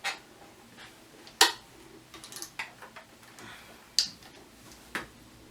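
A few scattered sharp clicks and knocks, about five at uneven intervals with the loudest about a second and a half in, over a quiet background: handling noise.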